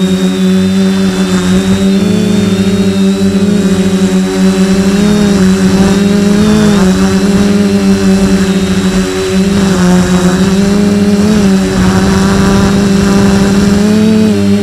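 The four brushless motors and propellers of a DJI F450 quadcopter are humming loudly, heard close up from the camera on board. The pitch dips and rises several times as the throttle changes.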